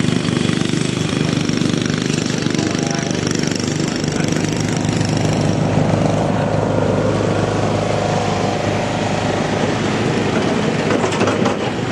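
A small engine running steadily and loud throughout, with a dense, rapid mechanical beat.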